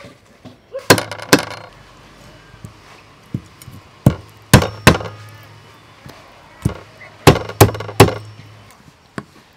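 Meat cleaver chopping a catfish on a thick round wooden chopping block: sharp chops in three groups of two to four, about nine in all.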